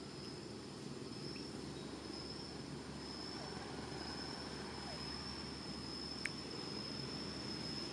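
Outdoor ambience: a steady low rumble under a continuous high-pitched insect drone, with one sharp click about six seconds in.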